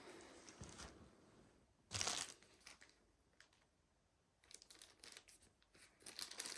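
Faint handling noises: a rustle about two seconds in, then a string of small clicks and rustles near the end.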